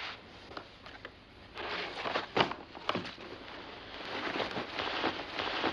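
Cloth rustling and a few soft knocks as a bundle wrapped in fabric is set down on a coffee table and unwrapped.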